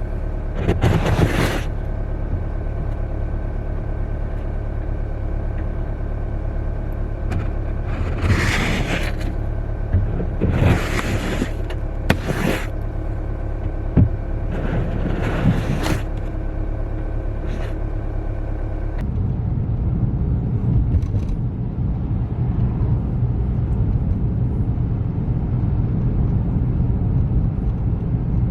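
Car running with a steady low rumble, and several short swishing sounds in the first half. About two-thirds of the way through, the rumble changes character.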